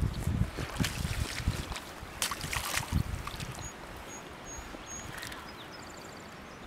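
A hooked bass splashing and thrashing at the water's surface as it is reeled to the bank and lifted out, with low knocks and thumps of handling noise in the first few seconds.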